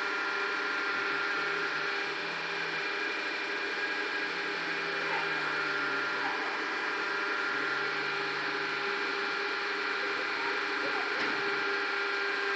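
ZCJK4-15 concrete brick machine running steadily: an even mechanical hum with several held whining tones and no pressing or vibrating strokes.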